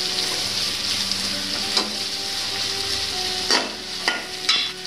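Vegetables sizzling in butter in an aluminium wok, stirred with a metal spoon that scrapes and clicks against the pan. Near the end, a few knocks as fried chicken pieces are tipped in from a bowl.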